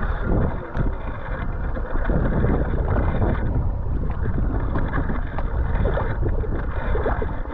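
Wind buffeting the microphone over the steady rumble of a mountain bike riding through wet, sticky mud.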